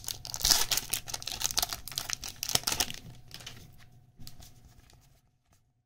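Foil booster pack wrapper being torn open and crinkled by hand: dense crackling for about three seconds that fades away, then near silence near the end.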